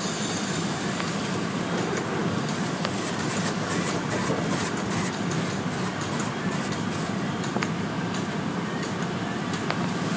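Automatic car wash heard from inside the car: a steady rush of water spray and wash machinery on the bodywork, with a quick pulsing hiss of spray hitting the glass in the middle.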